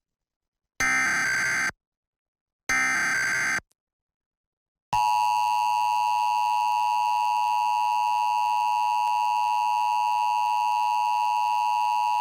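Emergency Alert System test from a DASDEC-II encoder: the last two of the three buzzing SAME digital header bursts, each about a second long with a short gap between them. After about a second of silence comes the steady two-tone EAS attention signal, which starts about five seconds in and holds without a break.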